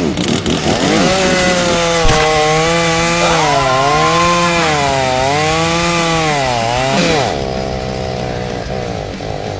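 Chainsaw engine sound revving, its pitch swinging up and down several times. About seven seconds in it drops back to a steadier, lower running note that fades.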